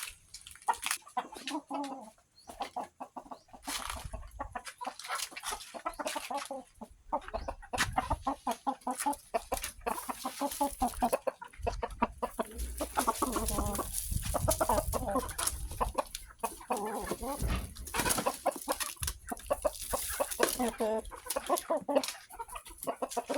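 Chickens clucking, with many short repeated calls throughout. Scattered clicks and knocks run alongside, and there are a few low thumps in the middle.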